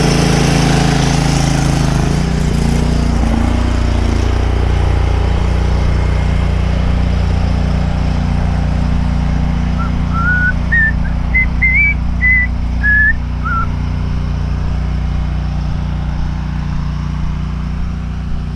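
Pressure washer rig's engine running steadily just after start-up, its pitch settling about two seconds in. Around the middle, a short run of whistled notes, rising then falling, sounds over it.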